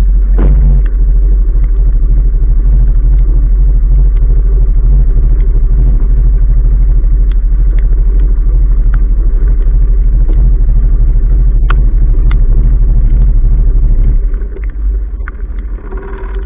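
Sailboat's inboard engine running under way, a loud steady low rumble with a fast even pulse, carried through the hull to the bow. It drops off noticeably about two seconds before the end, with a couple of sharp knocks shortly before that.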